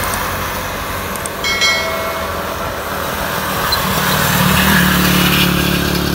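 Motorcycles passing on a wet road: engine drone over a steady hiss of tyres and air, the engine note growing louder about four seconds in. There is a brief high-pitched tone about a second and a half in.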